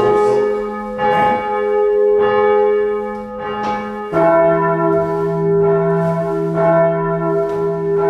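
Church bells swung by hand from ropes, ringing in a peal of repeated strokes with long-ringing tones. About four seconds in, a deeper bell comes in.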